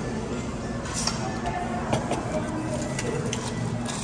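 Restaurant meal ambience: background voices and music, with a few sharp clinks of cutlery against china plates.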